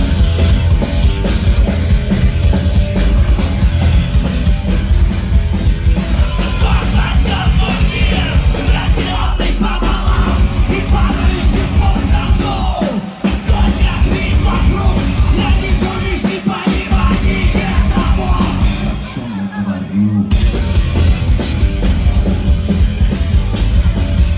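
Rock band playing loud, heavy distorted rock live, with a driving drum beat; the sound drops back briefly about twenty seconds in, then comes back in full.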